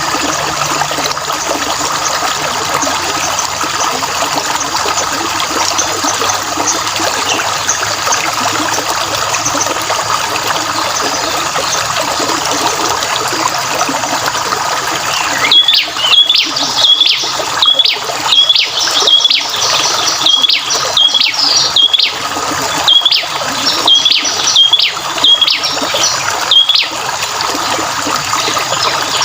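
Water trickling steadily, with faint bird calls. About halfway through, a songbird starts a loud run of repeated chirps, roughly two a second, for about ten seconds, and then the steady trickle carries on.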